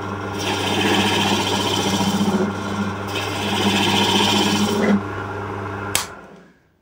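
Wood lathe running with a steady motor hum while a hook tool cuts the inside of a spinning wooden blank, making two long scraping, shaving passes. A sharp click comes about six seconds in, and the sound then dies away.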